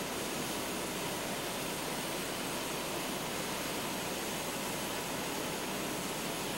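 A steady, even hiss-like noise, unchanging in level, with no separate knocks or rhythm.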